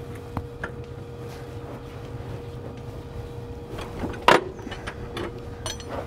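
Wrench working the locking nut on a conveyor belt tension adjuster, with scattered light metallic clicks and one sharp clank a little over four seconds in as the nut is broken loose. A steady hum runs underneath.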